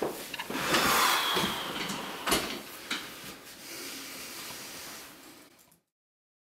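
Rustling with a few sharp knocks and clacks as a man settles into an office chair at a wooden desk; the sounds fade to silence near the end.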